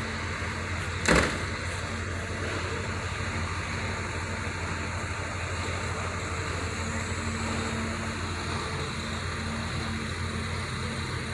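A Caterpillar excavator's diesel engine runs steadily while its boom and bucket move. A single sharp knock comes about a second in.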